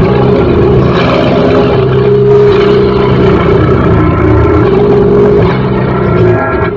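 Lo-fi raw black metal or noise demo recording: a dense wall of heavily distorted guitar holding steady droning notes, shifting pitch a couple of times, with a short dip in level near the end.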